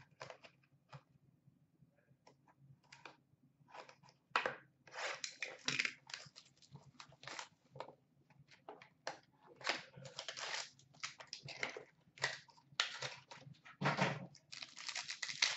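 Upper Deck SP Game Used hockey card box being torn open by hand and its contents pulled out: irregular bursts of cardboard tearing and wrapper crinkling, busiest about four seconds in and again near the end.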